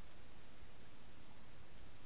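Steady, even hiss of underwater ambient noise picked up by a camera in a waterproof housing on the sea bottom, with no distinct events.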